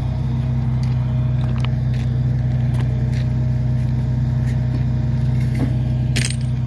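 An engine running steadily at an even idle-like hum, with a few light clicks and a short metallic clatter about six seconds in.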